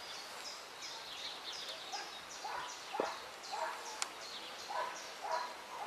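Birds calling in trees: a fast run of short, high, falling notes, with a lower call repeated about twice a second. There is a single sharp click about three seconds in.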